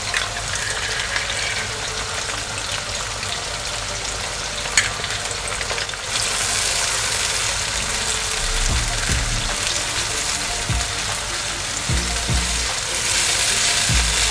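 Onions, garlic and ginger sizzling in oil in a nonstick wok after tomato paste is added, with one sharp click about five seconds in. From about six seconds the sizzle gets louder, and a wooden spatula stirs and scrapes the paste through the pan, knocking against it.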